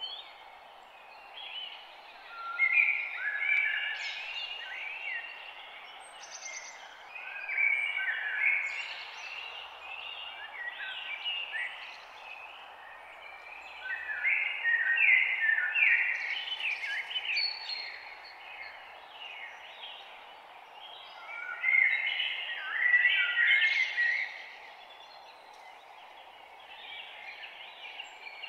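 Songbirds singing a morning chorus, bursts of quick chirps and trills every few seconds, over a steady background hiss.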